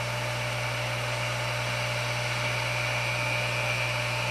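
Hot air rework station blowing steadily while reflowing the pins of a flux-coated FPC connector on a circuit board: a constant rush of air with a low hum and a high whine that grows a little stronger about two seconds in.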